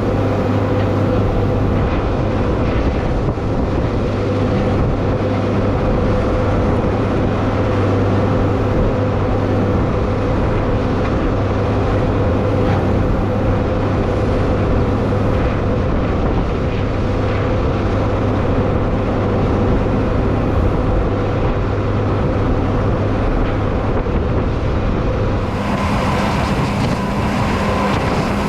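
Tractor engine running steadily under load, working the new mixer wagon, with a low hum throughout. About 25 seconds in, the engine's tone shifts as the speed or load changes.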